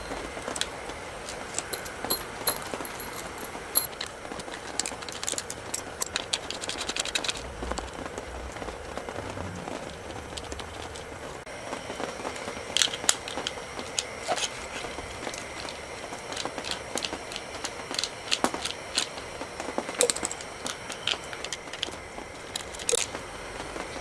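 Metal tools and alternator parts clicking and clinking as they are handled, with a quick run of rapid ticks about six to seven seconds in.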